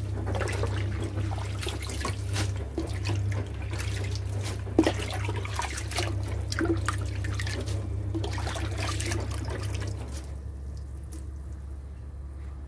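Tap water running into a plastic basin in a kitchen sink while hands swish and rinse chayote shoots, with many small splashes and a sharp knock just under five seconds in. The water sound grows quieter about ten seconds in.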